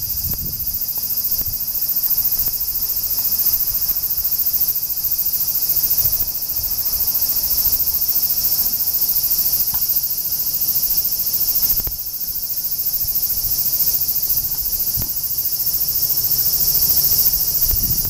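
Cicadas buzzing in a steady, high-pitched chorus, with a low, uneven rumble underneath.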